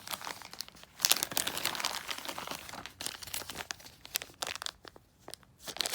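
Packaging crinkling and rustling as board-game components are handled and unwrapped, with irregular crackles and small sharp clicks, loudest about a second in.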